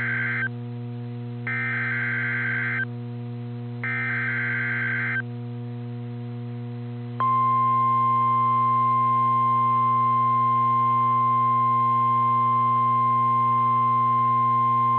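NOAA Weather Radio SAME alert header: the tail of one harsh digital data burst and two more like it, each about a second and a half long with short gaps between. About two seconds after the last burst, the steady single-pitch 1050 Hz warning alarm tone starts about seven seconds in and holds on, announcing a snow squall warning. A steady low hum runs underneath.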